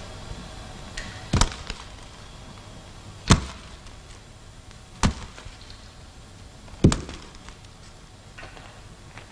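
Potatoes knocking hard against the wooden boards of a cellar potato bin as they are picked and handled: four sharp thuds spaced roughly two seconds apart, over a faint steady hiss.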